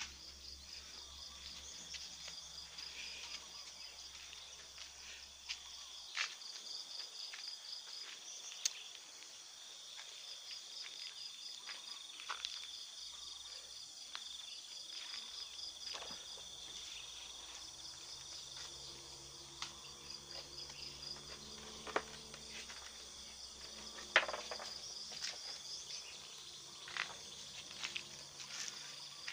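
Insects chirping and trilling steadily, a high pulsing trill recurring every few seconds over a continuous high drone, with a few scattered sharp clicks.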